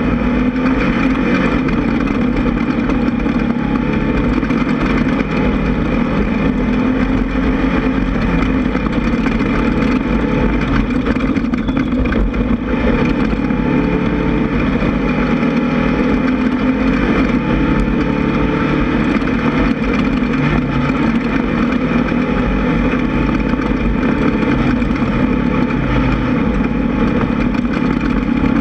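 Class 1600 off-road buggy's air-cooled VW engine running steadily under way, its pitch shifting a little up and down.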